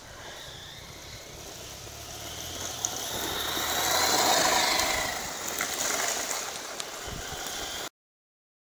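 Traxxas Slash RC short-course truck driving over gravel, its motor and tyres swelling to loudest as it passes close about four seconds in, then fading. The sound cuts off abruptly shortly before the end.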